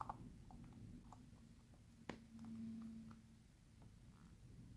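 Near silence with faint handling of a small plastic potion bottle and its stopper: a few small clicks and taps, with one sharper click about two seconds in.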